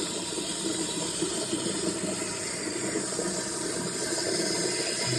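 Water running steadily into a toilet tank as it fills, a continuous hissing rush.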